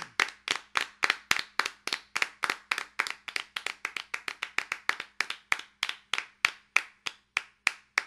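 Hands clapping in a steady rhythm, sharp single claps at an even pace of about three a second.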